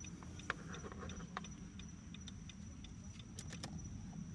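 Scattered light clicks and ticks at an uneven pace, as a car key and its remote fob are handled and their buttons pressed, over a low steady hum and a thin, steady high tone.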